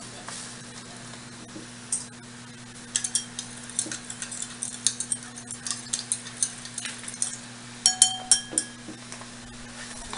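A spoon stirring a drink in a stemmed glass, clinking against the glass again and again from about three seconds in. A few louder clinks ring briefly near the end. A steady low hum runs underneath.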